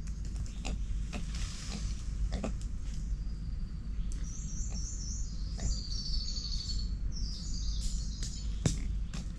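Forest ambience: a bird calling in quick runs of high-pitched notes from about four seconds in until nearly eight seconds, over a low steady rumble and scattered faint clicks, with one sharp click near the end.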